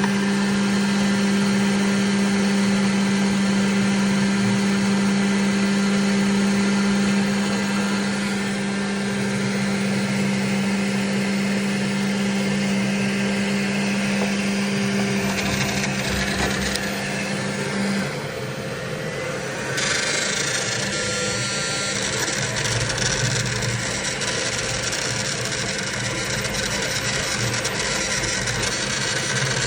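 Model (part-cooling) fan of an Elegoo Centauri Carbon 3D printer running with a steady buzzing hum over a whirring noise: the sign of a bad bearing in the brand-new fan. The hum drops out about 18 seconds in, leaving the machine's running noise.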